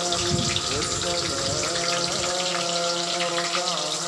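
Whole spices sizzling and crackling in hot oil in a steel kadai: a steady hiss with fine, quick pops.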